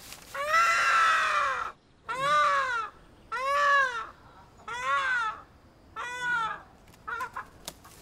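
A chicken held dangling by its legs, squawking in alarm: five loud squawks a little over a second apart, each rising then falling in pitch, the first the longest. A few short, weaker squawks follow near the end.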